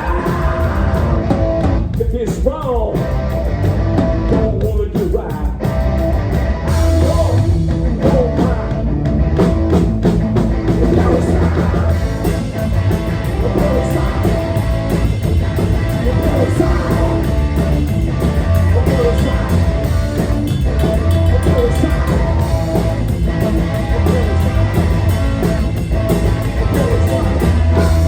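Live rock band playing, with electric guitar, bass and drum kit.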